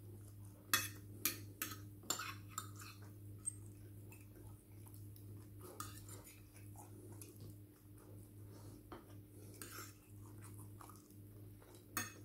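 Cutlery clinking against dishes, a handful of sharp clicks in the first two seconds, then sparser, fainter ones, over a low steady hum.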